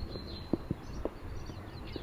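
Footsteps on a path, a few irregular knocks, with small birds chirping and a steady low rumble behind.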